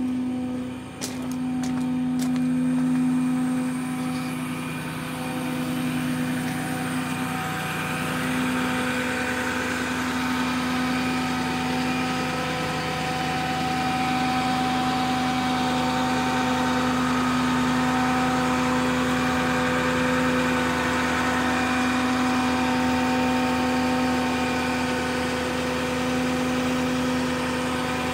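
Ford F550's 6.4-litre Power Stroke V8 diesel idling steadily with an even, droning hum. A few light clicks come about a second in.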